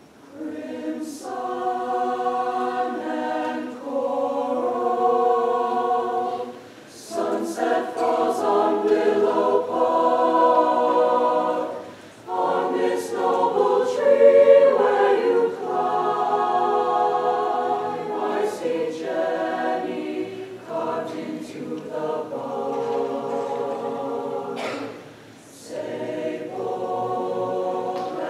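Mixed high school choir singing in held chords, phrase by phrase, with brief breaks between phrases about six, twelve and twenty-five seconds in.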